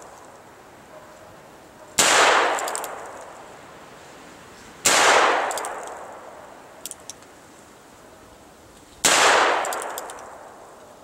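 Heritage Rough Rider .22 single-action revolver firing three shots, about two to four seconds apart, each echoing away over a second or so, with light clicks between shots.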